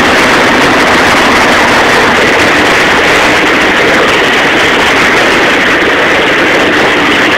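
Steady, loud rushing noise of a boat under way: churning wake water mixed with motor noise.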